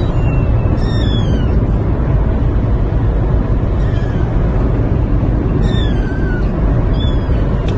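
A young kitten meowing in short, high calls, about five of them, each falling in pitch, over the steady low rumble of a moving car's cabin.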